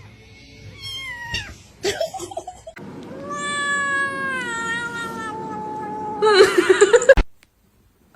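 Domestic cat meowing: two short falling meows, then one long drawn-out meow that slowly drops in pitch. It ends in a loud, harsh yowl that cuts off suddenly about seven seconds in.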